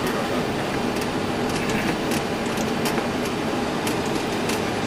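Steady running noise of a Boeing 737 heard in its cockpit while taxiing onto the runway, with light, irregular rattling clicks.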